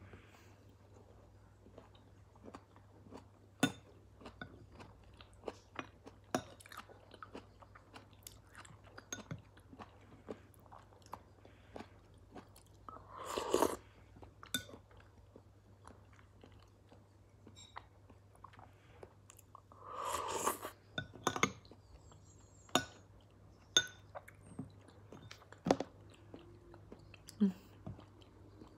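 Close-up eating sounds: a person chewing and slurping spoonfuls of es teler, an iced fruit dessert in coconut milk, with many short sharp clicks of a metal spoon against a ceramic bowl. Two longer, louder slurps come about halfway through and again a little later.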